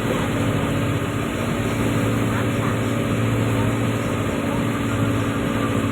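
Tugboat's diesel engine running steadily, a constant low drone.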